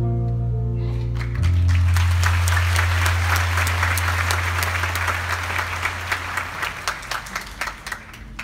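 Audience applauding over a held closing chord of the music. The clapping breaks out about a second in, while the chord fades away, and the clapping thins out near the end.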